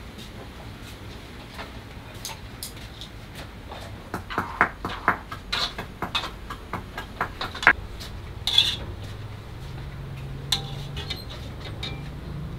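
Metal spoon and chopsticks clinking and scraping against a wok and a ceramic plate as stir-fried food is dished out. There is a quick run of clinks in the middle, with a couple of sharper knocks near the end of it.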